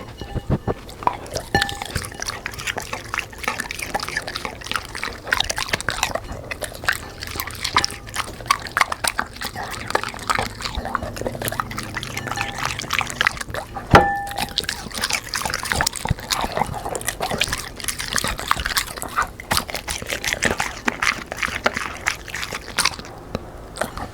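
Black Labrador eating: wet chewing and lip-smacking with many quick, irregular crunches and clicks. One sharp knock with a brief ring comes a little past halfway through.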